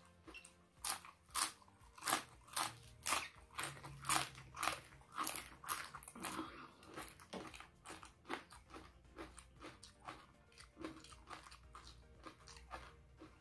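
Close-up crunching of a thin fried cracker being bitten and chewed: sharp crunches about twice a second for the first six seconds or so, then softer, quicker chewing.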